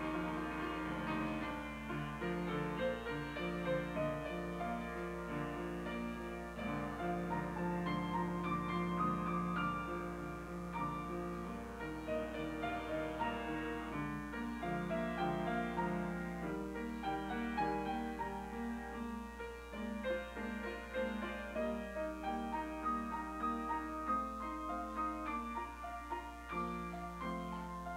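Grand piano played solo: a continuous piece of many changing notes, chords and melody together.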